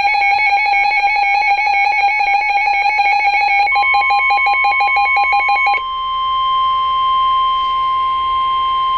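Emergency Alert System alert tones. A loud, rapidly pulsing electronic alarm is joined about three and a half seconds in by a steady tone, which carries on alone as one long unbroken beep from about six seconds in.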